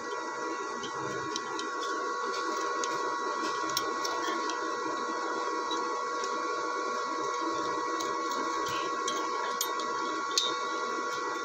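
Steady background hum with a few faint metal clicks from locking pliers and a wrench working a stuck bolt on an engine cylinder head; one sharper click about ten seconds in.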